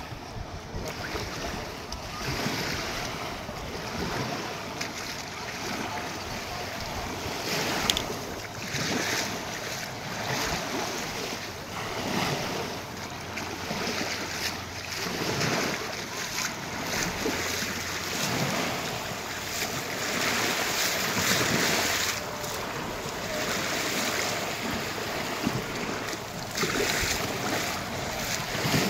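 Small waves lapping and washing up a sandy shore in uneven swells, with wind buffeting the microphone.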